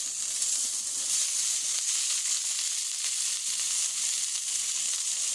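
Sausage sizzling as it fries directly on the hot metal top of a wood-burning tent stove, a steady high hiss of spitting fat.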